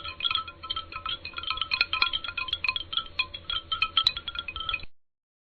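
Metal chimes tinkling in a quick, irregular cascade of bright notes, ending about five seconds in.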